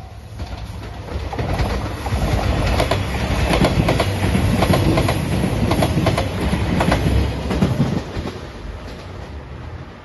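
JR Shikoku 2700 series diesel express train passing, its wheels clacking repeatedly over rail joints. The sound swells from about a second in, stays loud through the middle and falls away near the end. A level-crossing bell rings at the very start before the train drowns it out.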